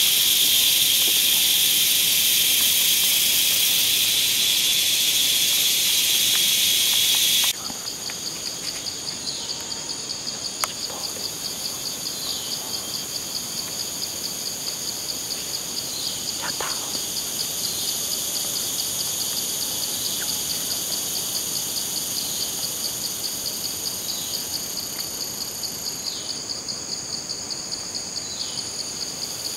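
Jungle insect chorus: a dense high buzzing that drops out abruptly about seven seconds in, leaving a fast, even pulsing trill with short falling chirps every couple of seconds.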